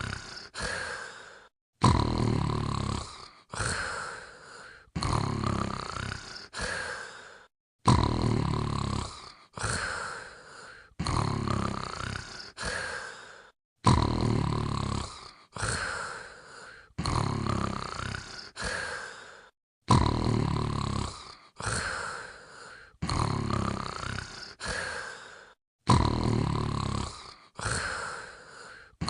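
A sleeping dog snoring, one snore about every second and a half, each starting loud and fading with a rising whistly tone. The sound cuts out abruptly about every six seconds and the same sequence starts again.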